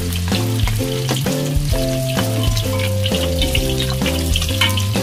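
Battered chicken wings shallow-frying in oil in a wok over a low flame, with a steady sizzle and crackle. Background music with a melody plays under it.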